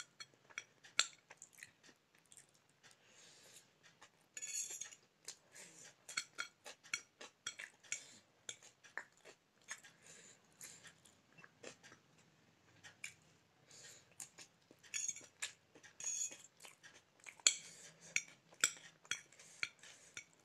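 Metal fork clinking and scraping against a ceramic plate as it picks up pasta, with close-up chewing and mouth sounds: many short, irregular clicks, busiest about four seconds in and again near the end.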